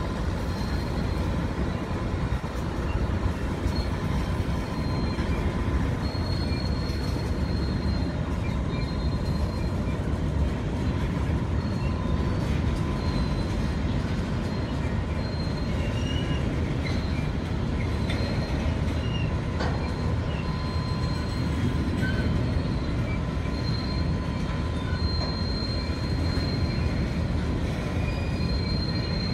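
Coal hopper wagons of a long freight train rolling past on steel rails: a steady low rumble of wheels, with high wheel squeal coming and going.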